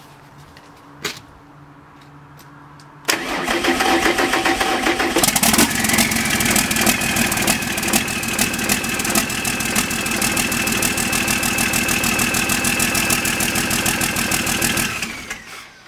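Sisu 84CTA turbodiesel generator engine cranked by its starter about three seconds in, catching about two seconds later and running with a rising, then steady whine, before shutting down and running down near the end. The owners suspect a mechanical fault in the number-two piston, with the engine blowing by.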